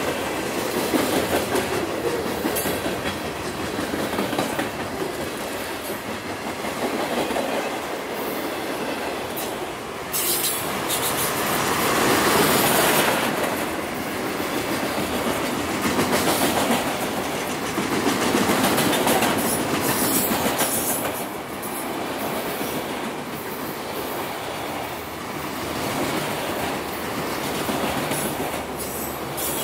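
Freight cars of a Union Pacific train, boxcars and then autorack cars, rolling past: a steady rumble and clatter of steel wheels on the rails that swells and fades every few seconds as the cars go by.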